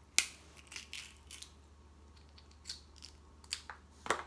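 Snow crab leg shell cracked and snapped apart by hand, a series of sharp cracks, the loudest about a quarter second in and another just before the end.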